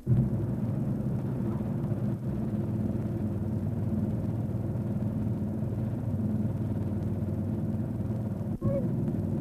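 Steady low hum made of several even tones, the background hum of an old home-video recording. It drops out briefly at picture cuts, about two and eight and a half seconds in.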